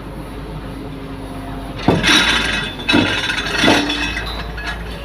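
Excavator at work: three loud metallic clanks with a ringing, scraping tail, about a second apart near the middle, over a steady low engine hum.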